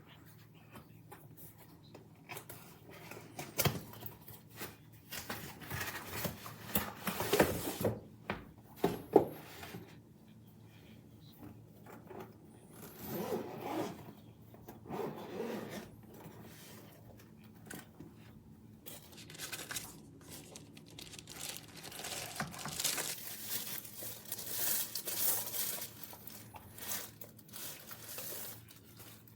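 Irregular handling noises: rustling, rubbing and scraping, with a few sharper knocks between about three and nine seconds in.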